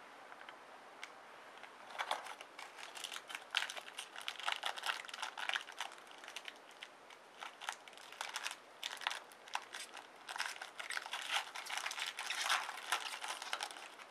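Trading-card pack wrapper crinkling as it is torn open and handled. A dense run of irregular crackles starts about two seconds in.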